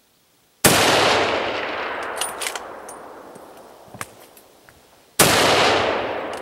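Two hunting-rifle shots about four and a half seconds apart, each followed by a long echo that fades away. Between the shots come a few sharp metallic clicks of the rifle's action being worked to chamber another round.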